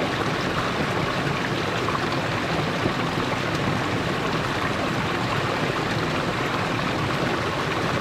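Water of a small stream running over rocks: a steady, even rush with no let-up.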